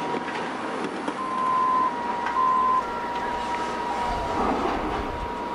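Heavy construction machinery running: a steady high-pitched whine, with two brief louder tones a little higher in pitch about one and two and a half seconds in, and a low engine rumble building near the end.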